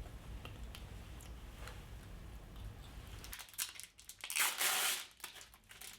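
Crinkling and tearing noises from a fruit roll snack and its wrapper being handled, starting about three and a half seconds in as a run of short bursts, the loudest about a second later.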